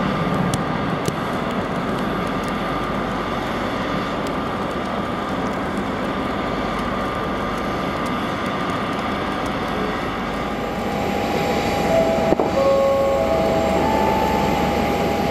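Steady mechanical rumble and hiss while a jet airliner is de-iced. A few faint steady tones join in about two-thirds of the way through, and there is a sharp click shortly after.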